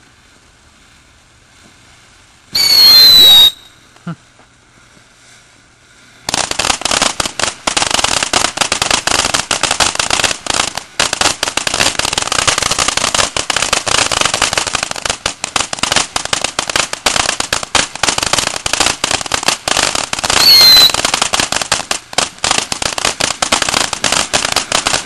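Ground fountain fireworks spraying sparks. About three seconds in comes a brief loud whistle that falls in pitch. From about six seconds on there is a dense, continuous crackling, with another short falling whistle near the end.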